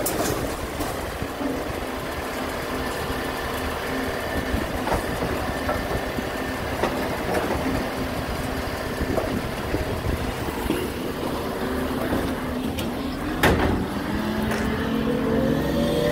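Recycling truck's engine running steadily, with a sharp knock about 13 seconds in, then its pitch rising near the end as it revs up.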